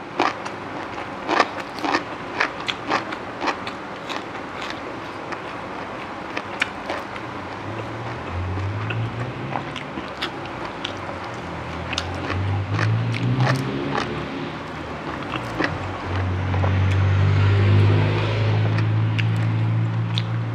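A person biting and crunching crisp raw vegetables, sharp crunches through the first half. Then a nearby vehicle engine runs, its pitch rising and falling, and grows louder and steady over the last few seconds.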